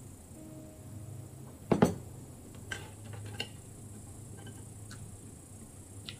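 A heavy glass beer mug set down on a table with a loud double knock, followed by a few light clicks of chopsticks against dishes.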